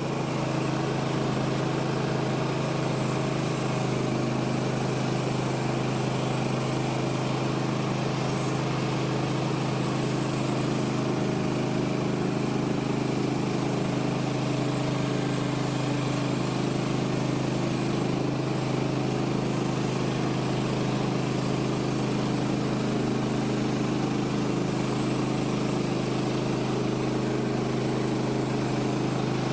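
Woodland Mills HM130 Max sawmill's small engine running steadily under load as the band blade cuts through a log, retried after the blade was cleaned of pitch.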